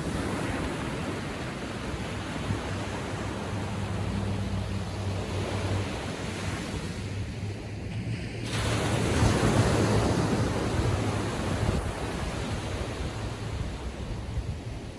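Small waves on a calm sea breaking and washing up the beach, with one wave surging louder just past the middle. Wind on the microphone, and a low steady hum underneath for much of the time.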